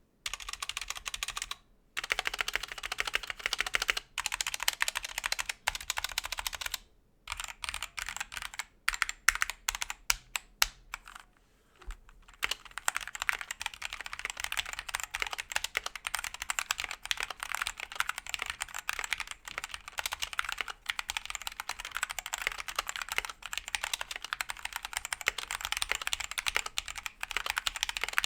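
Typing on a stock GamaKay K77 hot-swap mechanical keyboard with stacked plexiglass case and Gateron Black switches, out of the box. It comes in bursts of fast keystrokes, with a run of separate single presses around the middle, then steady fast typing. Its stock plate-mount stabilizers give a rattle that leaves lots of room for improvement.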